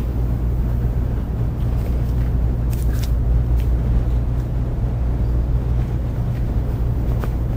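Steady low hum and rumble with a faint hiss: background room noise, unbroken, with a couple of faint ticks about three seconds in.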